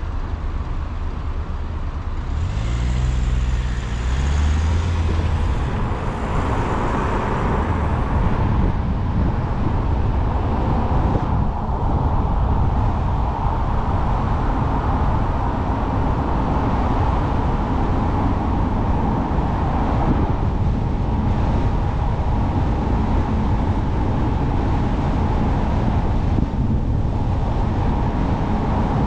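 Car driving on a road: steady tyre and road noise with engine hum. A deeper engine hum comes and goes a few seconds in, and the road noise gets a little louder after about six seconds.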